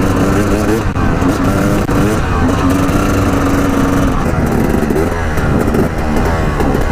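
Dirt bike engine running under way. Its note holds steady for stretches, then rises and falls as the throttle is opened and closed.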